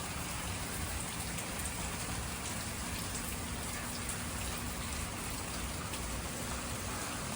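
Steady rain falling, an even hiss with scattered drops tapping.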